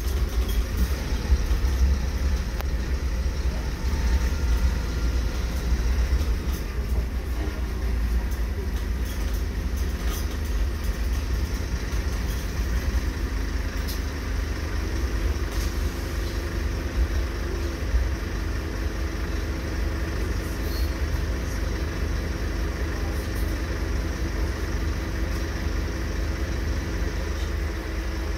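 Scania-chassis ADL Enviro 300 single-deck bus running, heard from inside the passenger saloon: a steady low engine rumble, with a steady hum coming in about halfway through.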